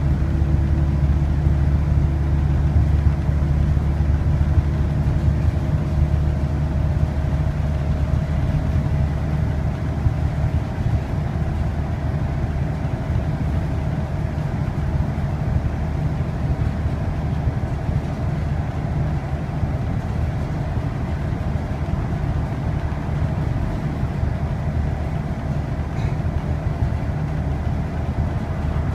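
Interior sound of a Volvo B7RLE single-decker bus cruising on the open road: the 7-litre straight-six diesel droning steadily under a haze of tyre and road noise. A whine from its ZF automatic gearbox rises slightly in pitch after the first few seconds.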